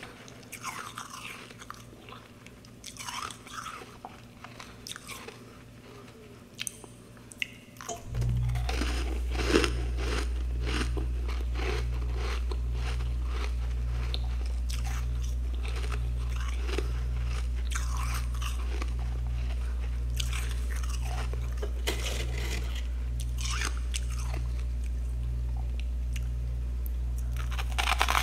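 Close-up crunching and chewing of freezer frost clumps: irregular crisp crunches and crackles. About eight seconds in, a loud steady low hum starts, with a drone pulsing about once a second, and runs under the crunching.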